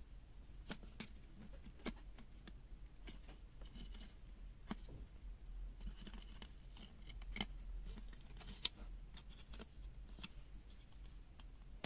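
Faint, irregular clicks, taps and scrapes of small plastic parts being handled: the UNI-T UT123D multimeter's case being worked open.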